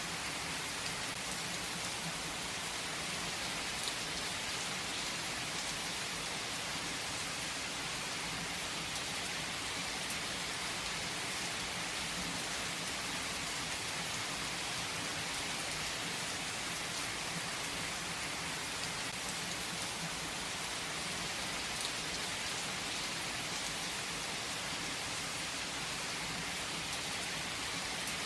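Heavy rain falling on a tree's leaves: a steady, even hiss of rain, with single drops ticking here and there.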